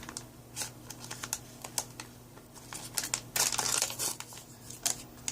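Irregular light clicks and short rustles from small parts being handled on a work surface, over a faint steady low hum.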